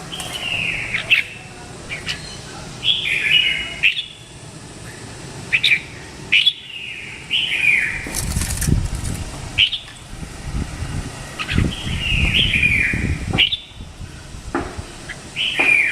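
Red-whiskered bulbul singing short, chirpy phrases of falling notes, repeated every two to three seconds. Low rumbles come twice in the middle, and a few sharp clicks are heard.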